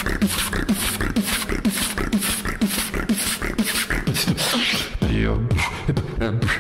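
Solo human beatboxing: a steady beat of sharp hi-hat-like clicks with short falling bass notes about twice a second. About four seconds in, the beat breaks into a downward sweep and a short low held bass tone.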